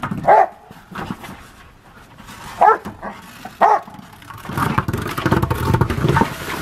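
A dog barking three short times, followed a little after halfway by a low rumbling, scuffling noise lasting nearly two seconds.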